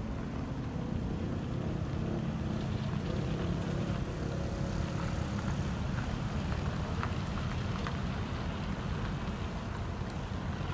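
Slow road traffic: cars, a box truck and a moped moving through a roundabout, their engines and tyres making a steady low rumble.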